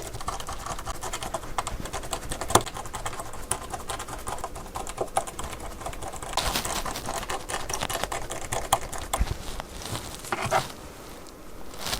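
Small clicks, taps and scrapes of hand tools and parts on a smartphone being reassembled, its screws being driven back in, with one sharper click about two and a half seconds in.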